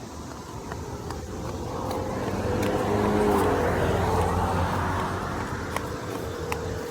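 A car passing by on the road: its engine and tyre noise grows, is loudest about three seconds in, then fades away.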